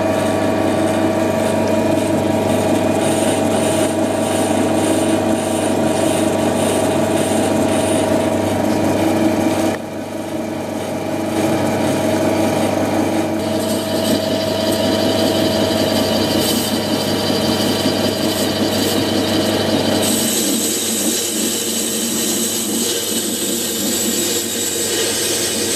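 Metalworking power tool running with a steady whine over rough cutting noise. The sound changes abruptly twice, about ten and twenty seconds in.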